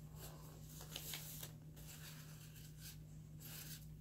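Faint repeated swishes of a paintbrush stroking across paper, over a steady low hum.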